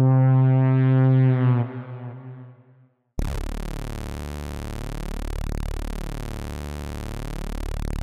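Korg Opsix Native software synthesizer. A held note on one patch fades away about a second and a half in, leaving a brief silence. About three seconds in, a thick held note on the 'Detune Saw' preset starts, with a slow swirling beating between its detuned voices.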